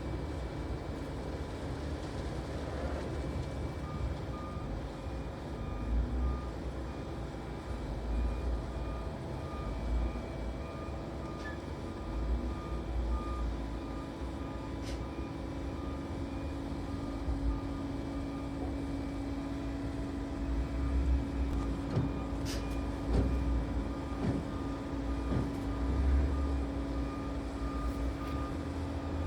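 Backhoe loader's engine running, with its reversing alarm sounding a steady string of short high beeps over low rumbling; a few sharp clicks or knocks come near the end.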